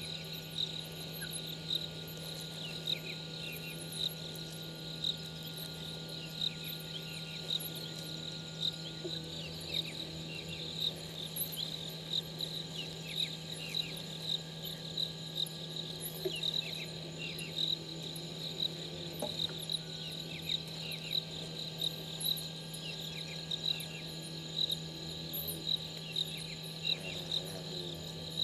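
Night chorus of crickets and other insects: a regular run of chirps, with many fainter, higher chirps over it, and a steady low hum underneath.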